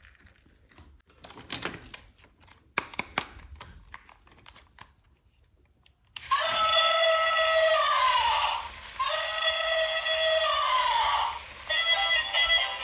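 Light clicks and taps of small plastic toy pieces being handled. About six seconds in, a toy's electronic sound chip starts playing a synthesized tune in short phrases through a small speaker that gives it no bass.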